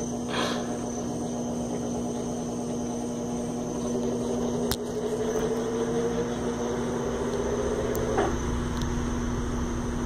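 Electrolux LT12F top-loading washing machine in its spin cycle, the basket accelerating through one of its speed ramps: a steady motor hum under a whine that rises in pitch, then drops out about eight seconds in. A single sharp click is heard about halfway through.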